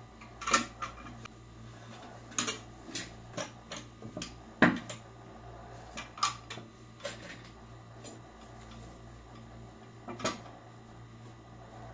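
Office chair's metal tilt mechanism and loose parts being handled and set against the seat base: scattered clicks, clacks and knocks, the loudest a heavier knock about halfway through.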